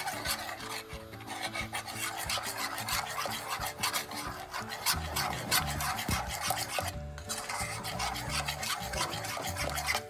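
A utensil scraping round the bottom of a pot in quick, continuous strokes as a milk-and-cream-cheese mixture is stirred over the heat to keep it from sticking while it thickens, with a brief pause about seven seconds in.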